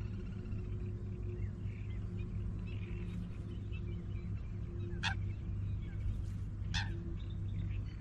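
A steady low ambient drone with a few faint bird chirps over it, and two short sharp sounds about five seconds and just under seven seconds in.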